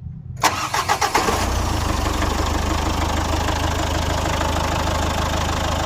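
Mazda Bongo's RF 2.0-litre four-cylinder diesel engine catching about half a second in, firing unevenly for a moment, then settling into a steady idle. It starts once the crank-no-start fault, traced to a jumped timing belt, is put right.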